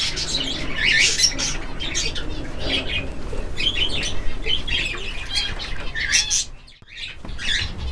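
Many caged budgerigars chattering and chirping at once, a dense run of short high chirps that dips briefly about seven seconds in.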